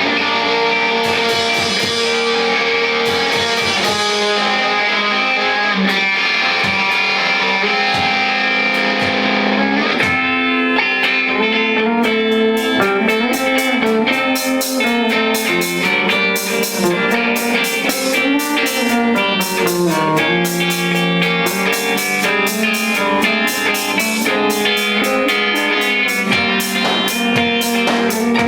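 Garage rock band playing live: distorted electric guitar chords ring on their own at first, and the drum kit with cymbals comes in about ten seconds in and keeps a busy beat.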